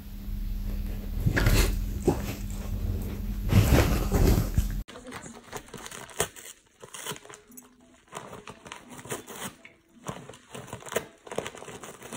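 A small dog yaps a few times over a loud low hum. Then, about five seconds in, quieter crinkling and tearing of wrapping paper as a dog paws and bites at a wrapped present.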